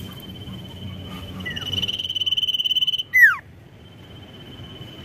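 Caged sirtu songbird singing a long, high, steady whistle that swells and turns into a fast trill over about three seconds, then breaks into a loud, sharp note sliding steeply downward. A fainter high whistle follows near the end.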